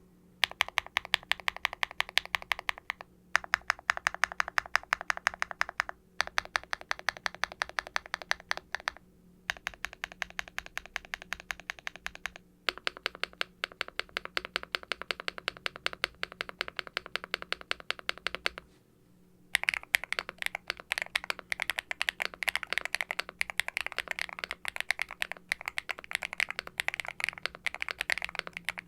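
Typing on a Hex80 mechanical keyboard with a carbon fiber plate, Owlab Ti HE linear switches (nylon bottom housing, PC top housing, POM stem, factory lubed) and double-shot ABS keycaps, giving a deep and clacky sound. Runs of rapid keystrokes are broken by brief pauses every few seconds, and the typing becomes faster and denser about two-thirds of the way through.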